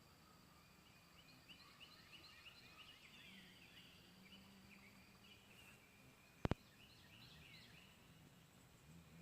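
Faint chirping of birds, many short repeated chirps, with one sharp click about six and a half seconds in.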